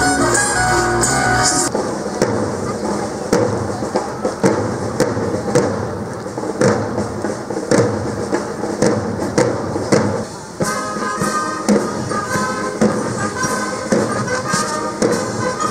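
A few seconds of upbeat dance music end, then an Italian Alpini military band's drums beat a steady march cadence. About ten seconds in, the brass join with a march tune over the drums.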